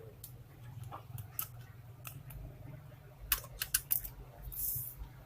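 Small sharp clicks and taps of plastic and metal laptop parts being handled and pried apart, with a cluster of clicks past the middle and a short scraping hiss near the end, over a steady low hum.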